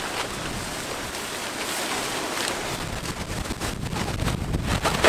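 Strong wind gusting across the microphone while the bell tent's fabric flaps and rustles as it is lifted and spread out, with sharper crackling flaps in the second half.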